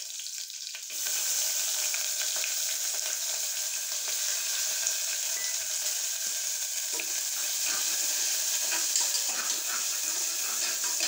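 Finely chopped onions sizzling in hot ghee and sesame oil in a pressure cooker pot. The sizzle jumps up about a second in as the onions go into the oil. In the second half a spoon stirs them, with a few light clicks against the pot.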